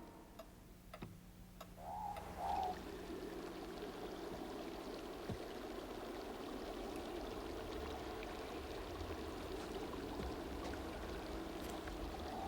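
Wind sound effect: a steady rushing with a short wavering moan about two seconds in and again near the end.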